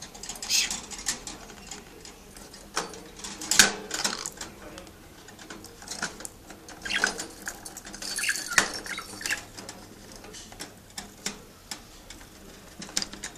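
Fingers rattling the wire bars and the clip-on plastic feeder cup of a small budgerigar cage: scattered clicks and clinks, with louder knocks about three and a half and eight and a half seconds in.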